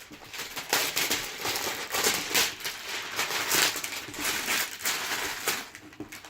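Toy packaging being handled and opened: irregular rustling and crinkling as tape is pulled off the box.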